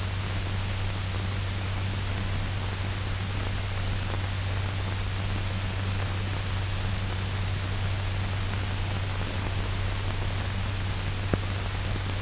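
Steady hiss with a low hum, the surface noise of an old optical film soundtrack, with no narration or music; a faint click about eleven seconds in.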